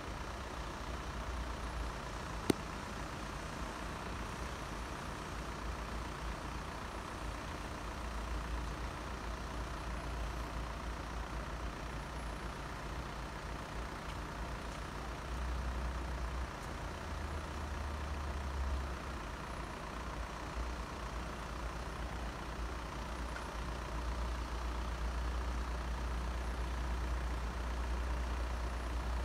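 Steady low rumble of road vehicles idling at the closed crossing, with one sharp click about two and a half seconds in.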